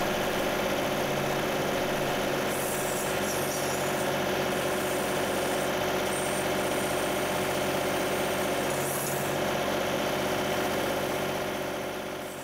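John Deere 2038R compact tractor's three-cylinder diesel engine running steadily while its 270B backhoe scrapes and levels the trench bottom. The engine sound fades out at the very end.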